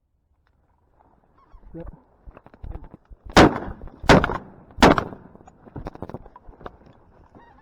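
Three shotgun shots fired in quick succession, about 0.7 s apart, with geese honking around them.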